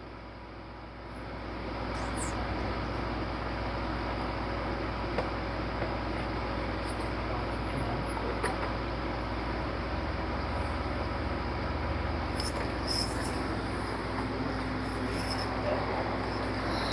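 A steady mechanical background hum with a few faint light clicks and clinks.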